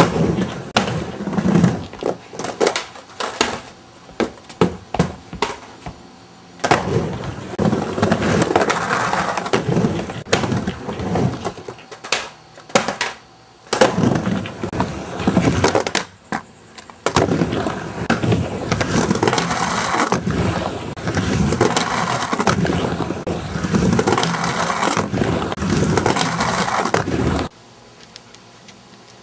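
Skateboard on a micro ramp with pool coping: sharp clacks and knocks from the board for the first several seconds, then long stretches of wheels rolling and trucks scraping along the coping, broken by short pauses, until it stops suddenly near the end.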